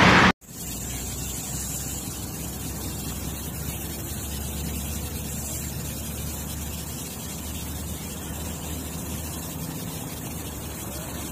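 A loud sound cuts off abruptly just after the start, followed by steady outdoor background noise: an even hiss over a low rumble, with no distinct events.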